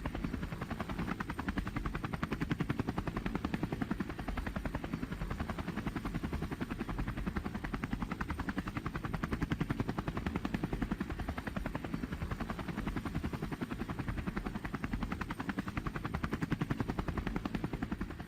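Black Hawk helicopter in flight, its main rotor beating in a rapid, even pulse over a steady engine and rotor noise.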